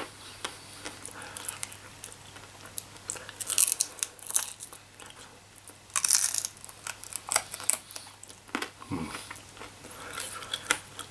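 Close-up mouth sounds of eating a barbecued chicken drumstick: biting and pulling meat off the bone and chewing, as irregular wet clicks and smacks, with louder bursts about four and six seconds in.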